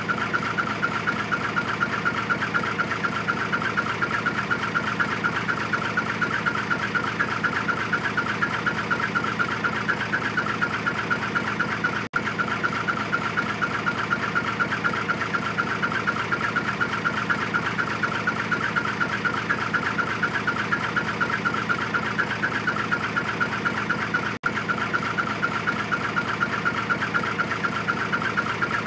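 Hino Profia dump truck's diesel engine idling through its twin-tip exhaust, a steady, rapid chirping pulse ("chun chun chun chun"). It cuts out for an instant twice.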